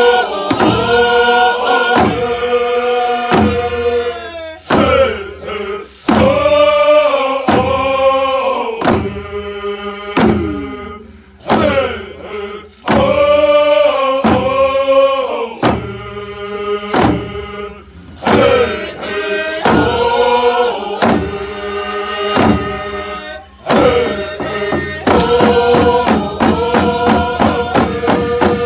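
A group of men singing a Coast Salish hand-drum song together, in long phrases with short breaks, over deerskin-style frame drums struck in a steady beat of about one stroke a second. Near the end the drumming quickens into fast, closely spaced strokes.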